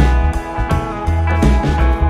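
Background music: a blues-rock guitar track with a steady bass and beat.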